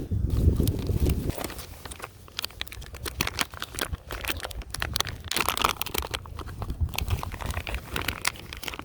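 Plastic soft-bait package crinkling and crackling as it is handled and opened, with many small irregular clicks.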